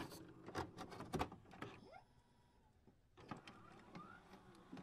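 Faint digital glitch sound effects: scattered short clicks and a few brief rising whirs, broken by about a second of silence two seconds in.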